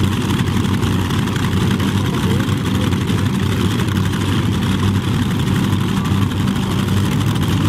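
Modified pulling tractor's engines running steadily at low speed, a loud even hum without revving.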